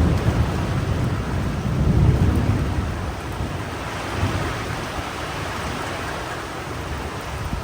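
Rain falling steadily, with low thunder rumbling that swells at the start and again about two seconds in, then fades.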